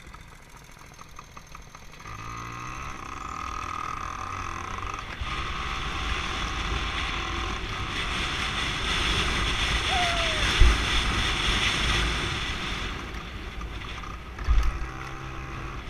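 An off-road vehicle's engine running, growing louder over the first few seconds, with a couple of short thumps in the second half.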